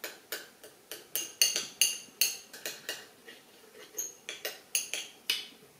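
Eating utensils clinking repeatedly against a dish, about three sharp clinks a second, each ringing briefly.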